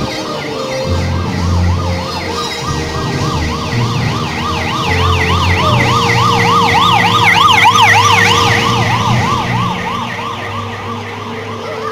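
Escort motorcycle's siren sounding a fast up-and-down yelp, about four sweeps a second, growing louder as it approaches and loudest about eight seconds in before easing off. The motorcycle's engine hums underneath.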